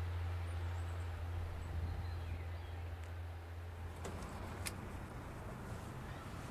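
A car towing a caravan drives past at a distance: a steady low engine drone that fades out about four seconds in. Two sharp clicks follow shortly after.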